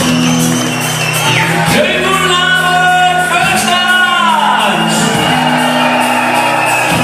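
Live band music with a voice shouting and singing over it in a large hall. Near the middle a long sung or shouted note slides down in pitch.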